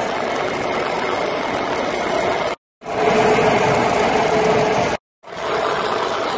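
Stick-welding arc crackling steadily as an electrode rod burns along a seam on steel pipe. The sound comes in three takes, cut off by a brief silence about two and a half seconds in and again about five seconds in.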